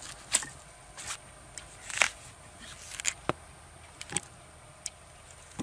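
Large knife cutting through a fresh yucca flower stalk on a slate slab: a series of sharp, irregular cuts and knocks as the blade goes through the stalk and strikes the stone, the loudest about two seconds in.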